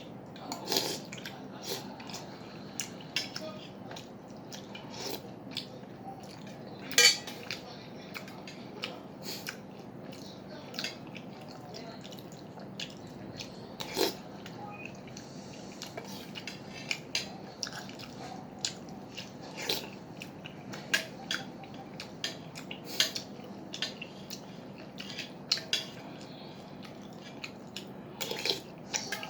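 Eating utensils clinking and scraping against a soup bowl in short, irregular clicks, the loudest about seven seconds in.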